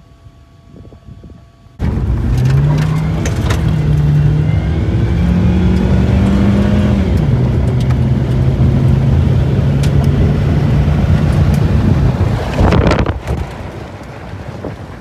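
A car engine accelerating, its pitch climbing and dropping back in steps as it shifts gears, then holding a steady cruise, under a heavy rush of road and wind noise. It starts suddenly about two seconds in and drops away about thirteen seconds in.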